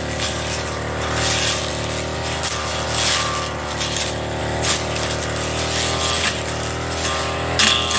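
Backpack brush cutter engine running steadily at working speed, its blade slashing through thick cogon grass, with irregular sharp hissing surges each time the blade bites into the stalks.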